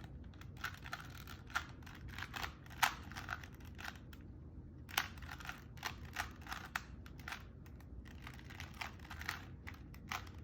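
Plastic Rubik's Cube being turned by hand, its layers making quick irregular runs of clicks and clacks, with a short pause about four seconds in.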